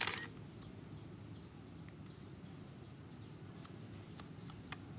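Canon EOS 5 film SLR firing its shutter right at the start, a loud snap with a short whir of its built-in film advance winding on one frame. A short faint high beep comes about a second and a half in, and near the end a run of small clicks as its command dial is turned.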